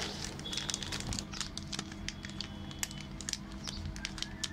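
Thin plastic zip-lock bag crinkling in the hands, with many small irregular clicks, as bunches of grapes are pushed into it and its zip seal is pressed shut.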